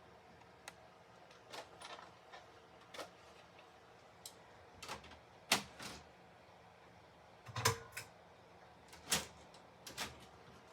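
Handling noise from a VHS cassette being handled: about a dozen scattered, irregular clicks and knocks, the heaviest a dull knock a little past the middle.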